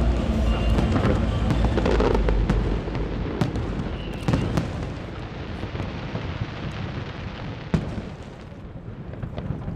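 Aerial fireworks shells bursting: a dense rumble of booms and crackling that thins out and fades, with a few sharp single bangs near the middle and late on.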